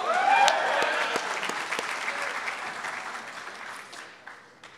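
Audience applause with a brief cheer at the start, fading away over about four seconds.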